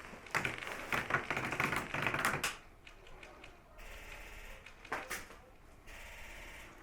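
Airsoft rifle firing a rapid clattering burst of about two seconds, then a short burst about five seconds in.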